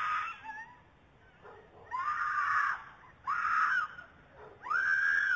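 A woman screaming for help in long, high cries, one trailing off at the start and three more about a second apart from two seconds in, picked up by a Ring doorbell camera's microphone.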